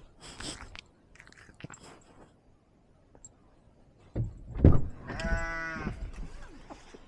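A sheep bleats once, a single wavering call of about a second, just after a loud low thump on the microphone. There is light rustling at the start.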